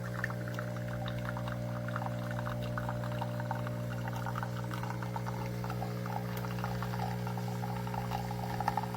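KOTLIE 19-bar espresso maker brewing: its pump hums steadily while coffee streams and sputters into the cup, near the end of the brew cycle.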